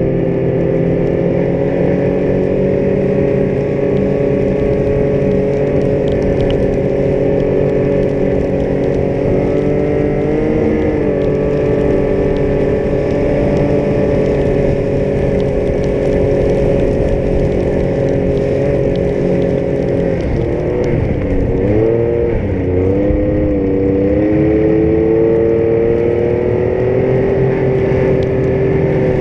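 Yamaha Vector snowmobile's four-stroke three-cylinder engine running at steady cruising revs. The engine pitch dips briefly about a third of the way in, then drops and wavers several times near two-thirds in before climbing back up toward the end.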